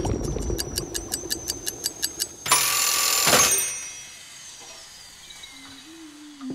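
Toaster timer ticking fast, about seven ticks a second, then a loud ringing clatter about two and a half seconds in that lasts about a second and dies away: the timer running out and the toast popping up.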